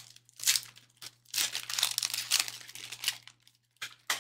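Foil trading-card pack wrapper crinkling and tearing as it is handled and ripped open, in several bursts with a longer stretch in the middle, then a couple of sharp clicks near the end.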